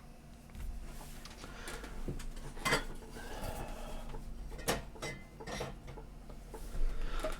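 Light clatter of small objects being handled and set down, with a few sharp knocks, two of them standing out, over a faint steady low hum.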